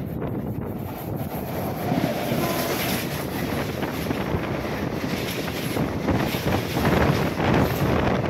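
Wind buffeting the microphone over the running noise of a MEMU electric train moving at speed, growing gustier in the second half.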